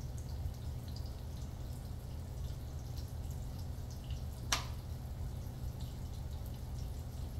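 Chicken thighs sizzling in butter in a hot frying pan: many small scattered pops and crackles over a low steady hum. One sharp click about halfway through.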